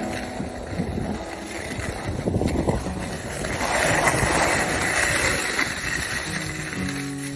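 Skis hissing and scraping over packed, groomed snow during a downhill run, with wind rushing over the microphone; the rush swells about halfway through.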